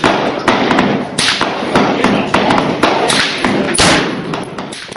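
Gunfire on a shooting range: many shots in quick, irregular succession and of differing loudness, echoing, thinning out near the end.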